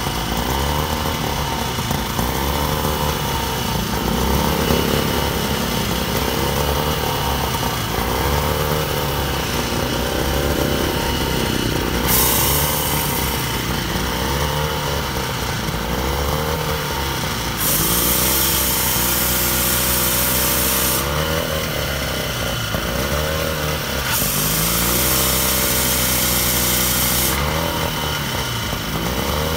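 Portable fire pump engine on a small fire truck running hard, its pitch rising and falling every second or two, while the pump delivers water into the coupled hose. Three stretches of loud hissing spray break in, about twelve, eighteen and twenty-four seconds in.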